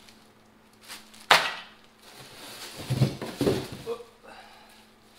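Parts being unpacked from a cardboard box with foam packing: a single sharp knock about a second in, then a stretch of rustling and scraping as items are handled and pulled out.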